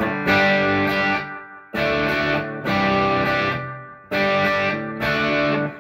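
Electric guitar strumming five chords through an amplifier, each ringing out and fading. The sound is bright, with the Jaguar's pickup in P90 mode and its volume and tone knobs both on 10.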